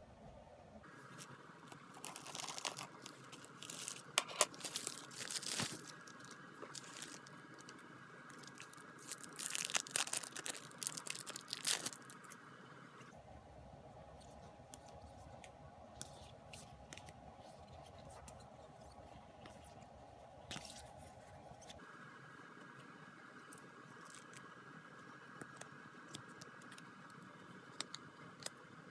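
Packaging being handled and opened, crinkling and tearing in two bursts, about two seconds in and again around ten seconds in, then only a few faint rustles.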